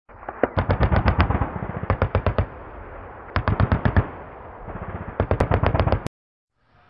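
Machine-gun fire in four short bursts of rapid shots, cutting off abruptly about six seconds in.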